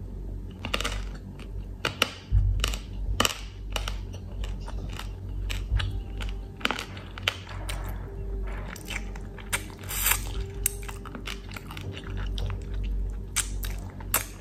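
Close-up chewing of crispy fried duck (bebek goreng), with irregular crunches as the crisp meat and brittle fried bits are bitten and ground.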